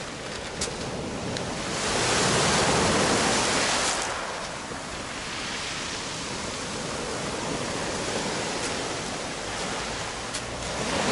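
Small sea waves breaking and washing up over a pebble beach, the surf swelling loudest about two seconds in and easing off again after about four.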